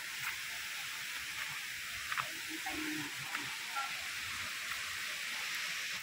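Steady hiss of rushing water from a waterfall heard through the trees, with a short faint click about two seconds in.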